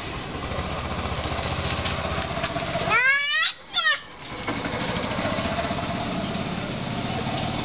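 A steady engine rumble, like a running vehicle, with two short high-pitched squeals from a young child about three seconds in.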